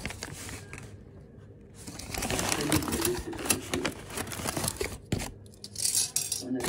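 Paper bag crinkling and rustling as it is unfolded and pulled open, quieter for the first couple of seconds, then dense and crackly.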